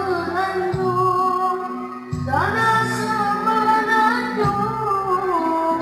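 A boy singing into a microphone over backing music, holding long notes with gliding ornaments. A little after two seconds in he starts a new phrase that slides up into a held note.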